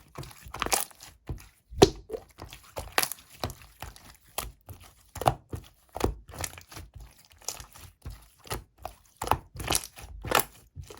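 Clear slime being squished and stretched by hand, giving irregular sharp pops and clicks, about one or two a second, with softer squelching between them.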